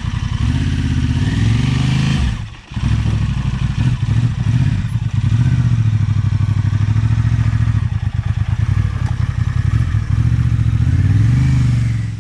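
Adventure motorcycle engine running at low revs while the bike is walked through a rough culvert washout. The revs rise briefly twice, and the sound dips for a moment about two and a half seconds in. It cuts off sharply at the end.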